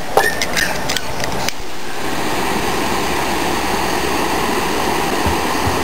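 A few small handling clicks, then from about a second and a half in a butane torch lighter's flame hissing steadily as it melts the cut end of nylon paracord to seal it.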